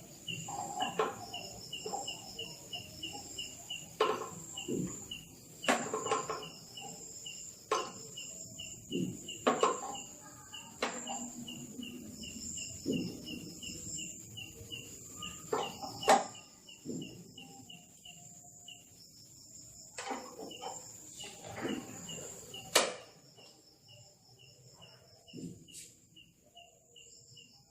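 Insects chirp steadily throughout, a high pulsing trill of about four chirps a second. Over it come irregular sharp clicks and knocks from hands and tools working on the scooter's parts. These stop about three-quarters of the way through.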